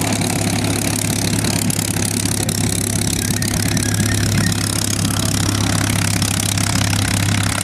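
P-51 Mustang's Packard Merlin V-12 engine running at low taxi power, a loud, steady, deep drone with propeller noise.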